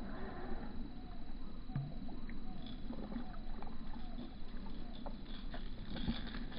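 A hooked bass splashing and thrashing at the water's surface as it is reeled in to the bank, with faint scattered ticks over a steady low rumble.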